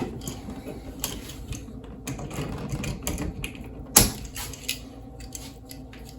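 Light clicking and tapping of small plastic and metal electrical parts being handled while wires are pulled from push-in connectors, with one sharp click about four seconds in.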